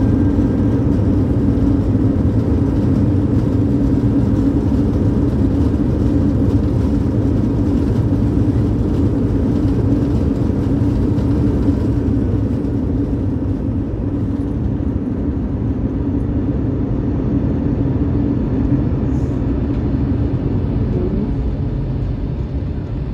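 Cabin noise of an Airbus A321 rolling out on the runway after touchdown: a loud, steady roar of engines and wheels, easing a little about halfway through.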